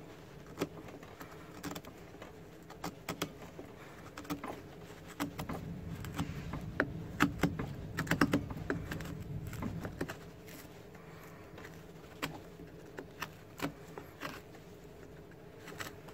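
Spoon knife made from a spanner's sharpened ring end carving into a wooden board: a run of irregular sharp scrapes and clicks as wood chips are cut. They come thickest and loudest in the middle.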